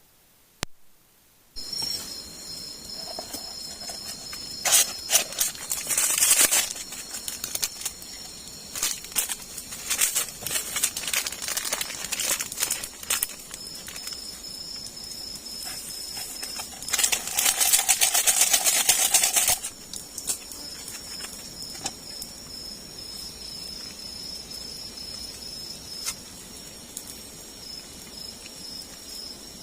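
Forest insects trilling steadily at a high pitch, with scattered crackles and clicks. Two louder stretches of rustling noise stand out, the longest, about two and a half seconds, near two-thirds of the way through.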